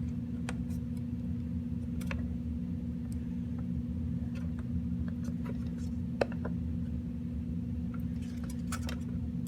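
Scattered small plastic clicks and taps as a cable connector is handled and pushed onto the graphics card's circuit board, one sharper click about six seconds in, over a steady low hum.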